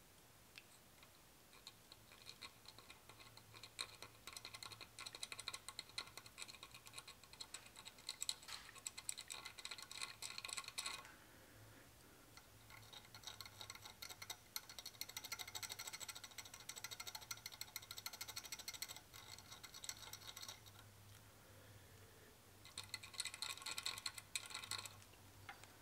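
Faint metallic clicking and scraping of small steel bolts being worked by hand into the holes of a drilled aluminium plate, in three stretches with short pauses between.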